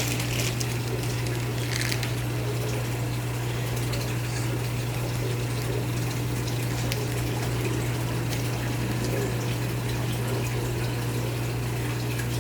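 An electric water pump running with a steady low hum, with water flowing and splashing over it.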